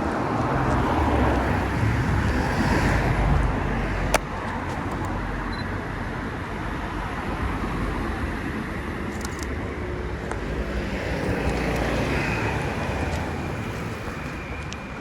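Street traffic: cars passing, the noise swelling and fading twice. A single sharp click comes about four seconds in.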